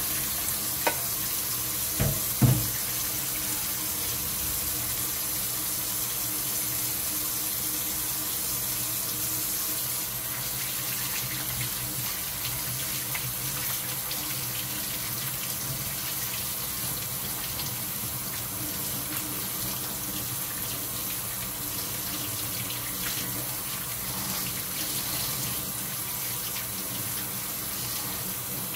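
Kitchen tap running steadily into a stainless steel sink and over seitan dough being rinsed and squeezed by hand in a plastic colander, washing the starch out of the wheat dough. A few light knocks about two seconds in.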